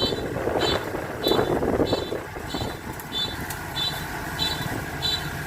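Kubota DC93 combine harvester running steadily, with an electronic beeper sounding evenly about three times every two seconds.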